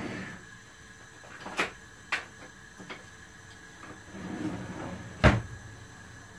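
Kitchen knocks and clatter off camera: a few sharp clicks and knocks with some soft rustling, then a heavy thump about five seconds in, the loudest sound.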